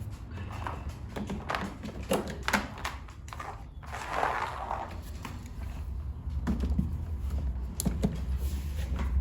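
A string of light knocks and clicks, roughly two a second, from equipment being handled, with a short hiss about four seconds in and a low rumble growing in the second half.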